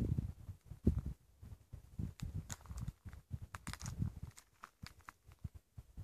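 Footsteps crunching on dry grass and gravel, with irregular low thumps and sharp crackles.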